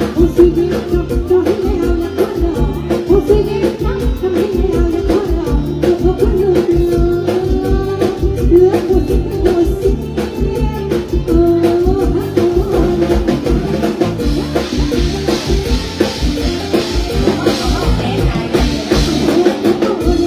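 Live mor lam band music played loud over a PA: a woman singing a melody over a steady drum-kit beat and a pulsing bass, with a wash of cymbals coming in after about fourteen seconds.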